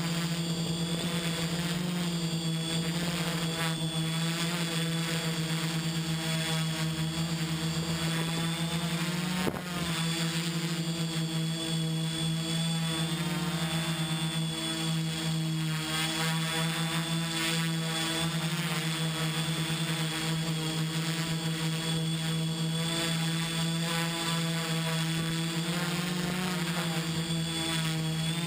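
XAircraft X650 V4 quadcopter's brushless motors and propellers whining steadily in flight, heard from the GoPro mounted on its camera gimbal, with one brief click about nine and a half seconds in.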